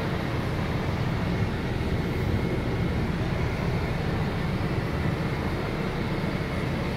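Diesel engine of a MAN TGX 18.440 truck idling steadily, heard from inside the cab as an even low rumble.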